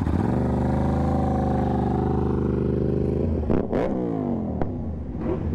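Motorcycle engine running at a steady pitch for about three seconds, then its pitch drops and quickly climbs back up, with a few sharp clicks. After that the engine sound is quieter.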